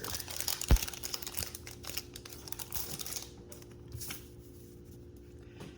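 Trading-card pack being opened and handled: crinkling foil wrapper and cards being sorted with small clicks, and one knock about three-quarters of a second in. The handling dies down after about three seconds.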